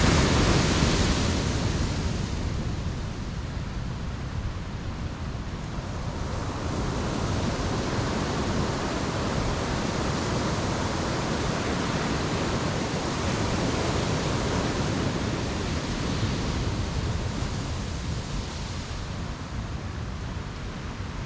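Ocean surf breaking and washing up the beach. The loudest surge comes right at the start and ebbs over the next couple of seconds, and a longer, gentler swell builds through the middle before easing off near the end.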